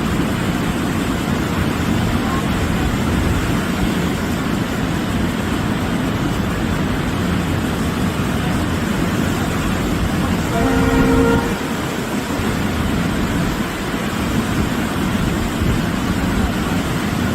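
A continuous loud rushing noise, with one short horn blast lasting under a second about ten and a half seconds in.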